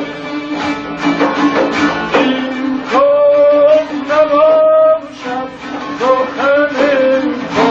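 Tanbur, the long-necked lute, played with quick strummed strokes over a ringing drone. A few longer held notes that slide slightly come through in the middle.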